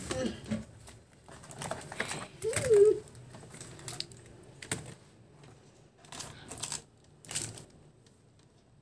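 Small hard objects on a shelf being handled: scattered clicks, taps and light rattles of plastic boxes and stationery, with a sharp click a little under five seconds in. A brief sound with a sliding pitch stands out as the loudest moment about two and a half seconds in.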